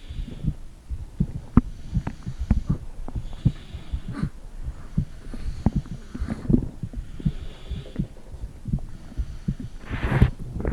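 Heartbeat and stomach sounds picked up through a phone microphone pressed against the stomach: many dull, irregular low thumps, with a louder rustle near the end.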